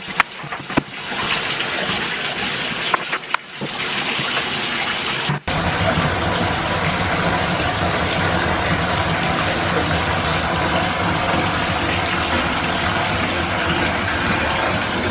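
Water running from a bathtub spout and pouring into a filling tub, a steady rushing that starts abruptly about five seconds in. Before it come irregular water sounds and small knocks of the tub being cleaned.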